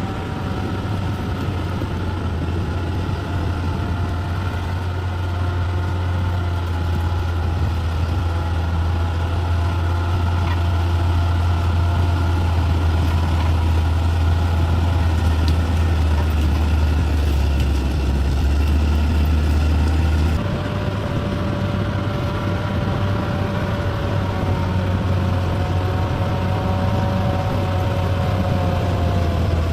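Heavy construction machine's diesel engine running steadily under a low, even drone, its note shifting abruptly about two-thirds of the way through.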